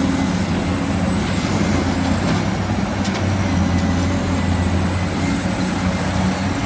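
Heavy vehicle engine running steadily with a deep, even rumble.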